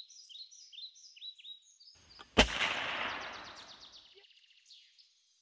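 Birds chirping, then about two and a half seconds in a single loud gunshot whose echo dies away over a second or so. A rapid high bird trill follows near the end.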